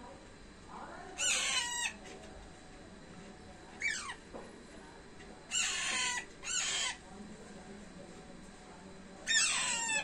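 Young Alexandrine parakeets calling: about five loud separate calls, each falling in pitch, spaced one to three seconds apart.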